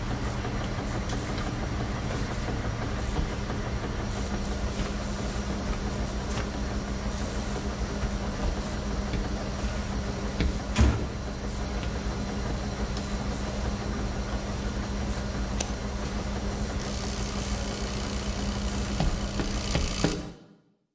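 Steady low hum and rumble of laundromat washing machines running, with a single knock about eleven seconds in. The hum fades out just before the end.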